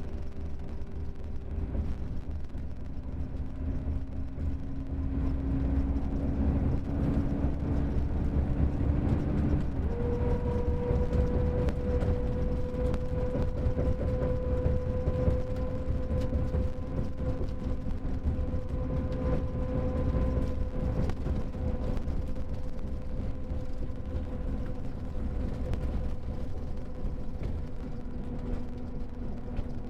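Mercedes-Benz OM-457LA inline-six turbodiesel of a Marcopolo Paradiso G7 1800DD double-decker coach running with its ZF automatic gearbox: a steady low rumble with a whine that steps up to a higher pitch about ten seconds in and then holds.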